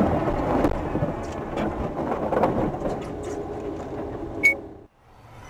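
Aftermath of a car crashing into the back of a truck: a rumbling noise of the wreck fading over several seconds, with scattered small clicks and rattles. A sharp click comes near the end, then the sound cuts off suddenly.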